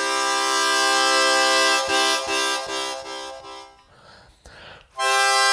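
Seydel 1847 Lightning diatonic harmonica blown as a held chord for almost four seconds, wavering briefly halfway, then a short breath and a second blow chord starting near the end: a chord check of the harmonica's tuning.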